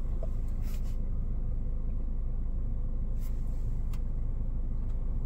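Steady low rumble of a stationary BMW X1 heard inside its cabin, with a few faint clicks about a second in, around three seconds and around four seconds.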